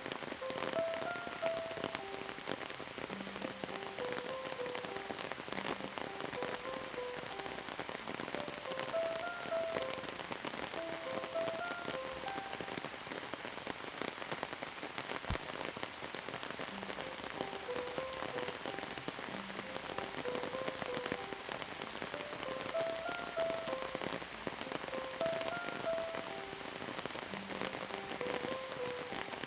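Steady rain with many individual drops ticking on a surface, and soft short pitched notes of a slow, gentle melody sounding faintly beneath it.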